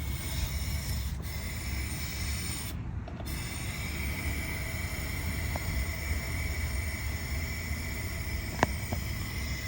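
Air hissing steadily out of a punctured car tire as it is let down, with one sharp click near the end.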